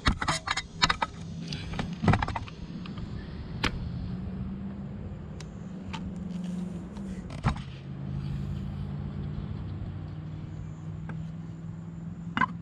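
Handling of wires and small metal parts while wiring an RV air conditioner's soft start: a quick cluster of clicks and rattles in the first two seconds, then scattered single ticks. Under them, a steady low mechanical hum.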